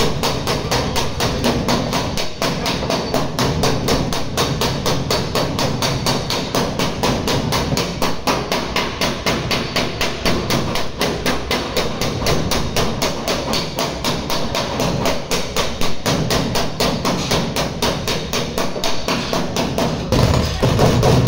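Hammer tapping rapidly and evenly on the sheet-metal edge of a car body panel, several light blows a second, to straighten a dented edge; the blows grow louder near the end.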